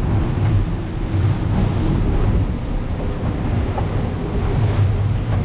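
Wind on the microphone and sea water rushing along the hulls of an Ocean Fifty racing trimaran sailing fast through rough water. A loud, steady, low rushing noise.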